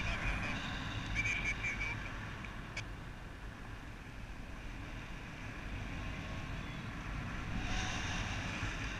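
Wind rushing over the microphone in flight: a steady rumbling hiss that grows brighter near the end. There is a short run of high beeps about a second in.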